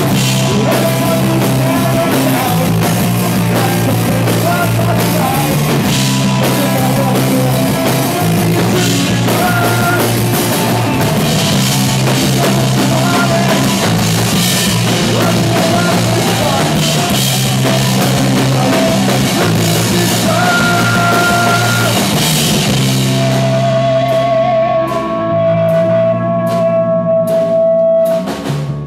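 Live rock band playing loud: electric guitar, bass and drum kit with cymbals. About 23 seconds in the cymbal wash drops away, leaving a held, wavering note over evenly spaced drum hits.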